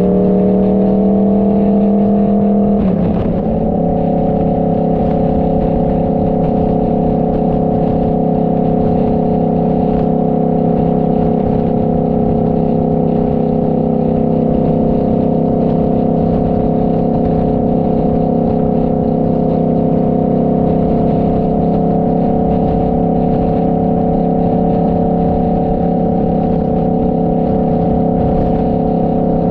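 Motorcycle engine running at cruising speed as a steady drone. Its pitch climbs slightly for the first three seconds, breaks briefly as at a gear change, then holds steady.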